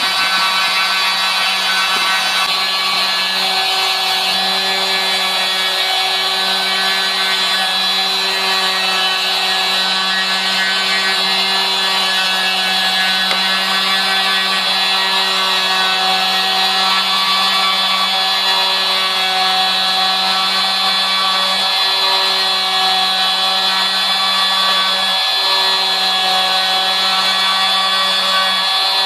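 A CNC router's handheld-router spindle running at a steady high speed while its small bit mills a clock gear out of a wooden sheet. The sound is a steady whine with a lower hum and the hiss of the bit cutting.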